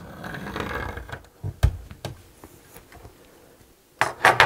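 Pencil scraping along a drywall wall as a line is drawn against a spirit level. Then comes a single knock, and near the end a louder double clatter of tools being handled and set down.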